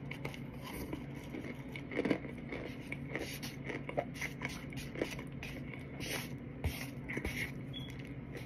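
A white plastic fork scraping and scooping raw Argo cornstarch off a plate, with soft crunching of the packed powder being chewed. These come as irregular small scrapes and clicks, a few a second.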